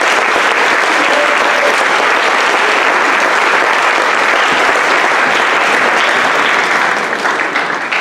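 Large audience applauding, loud and steady, tapering off near the end.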